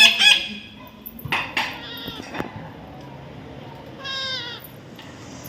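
Pet parrot calling in short, high-pitched squawks: a loud one right at the start, a few more about one and a half to two and a half seconds in, and a longer call about four seconds in.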